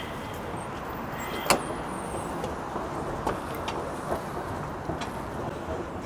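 Street ambience in a busy city square: a steady hum of traffic, with a sharp click about a second and a half in and a few fainter knocks after it.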